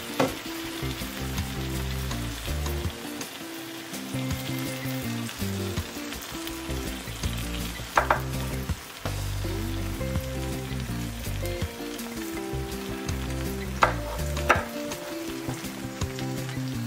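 Egg and tomato omelette sizzling steadily in a nonstick frying pan, with a few short knocks: one near the start, one about halfway, and two close together near the end.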